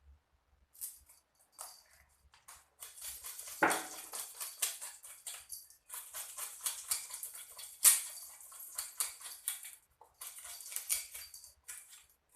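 Kitchen handling noise: rapid scraping and clicking strokes, with two sharper knocks about four and eight seconds in.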